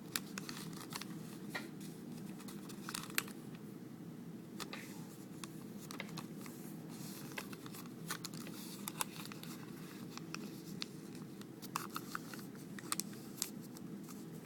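Square origami paper crinkling and crackling in irregular bursts as a flap is lifted and its edges folded in and pressed along the creases. A steady low hum runs underneath.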